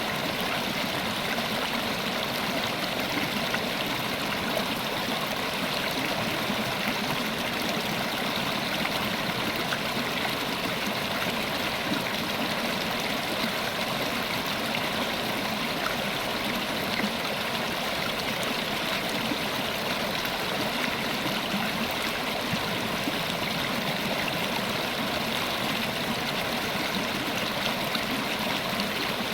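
River water running over rocks, a steady rushing and gurgling that holds evenly without change.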